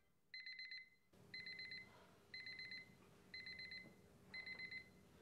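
Bedside alarm clock going off: short groups of rapid, high electronic beeps, one group about every second.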